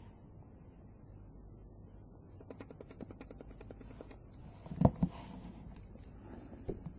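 Handling noise from a smartphone being turned over in the hands: a run of small quick clicks and rubs, then a single sharp knock a little after the middle as the phone is put down on the table.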